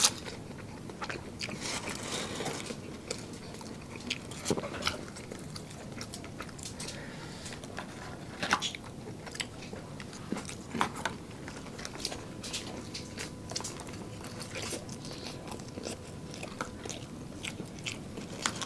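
Close-up eating sounds from two people biting and chewing fried fast food such as fries and crispy fried snacks. Sharp crunches and clicks come irregularly throughout the chewing.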